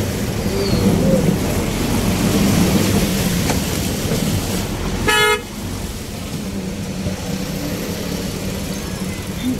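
Auto-rickshaw engine running with a low rumble, heard from inside the cab in traffic. A vehicle horn honks once, briefly, about five seconds in.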